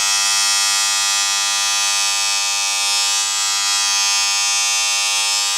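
Wahl electric hair trimmer running with a loud, steady buzz that cuts off suddenly at the end.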